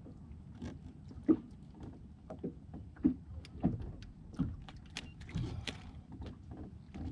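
Small waves lapping and slapping irregularly against the hull of a bass boat, a hollow knock every second or so over a low rumble.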